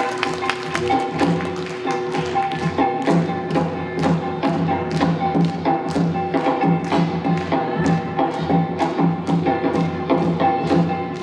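Korean traditional music for the Jinsoe dance: sharp metallic kkwaenggwari strikes, about two a second, each ringing briefly, over a sustained melodic line from the accompanying ensemble.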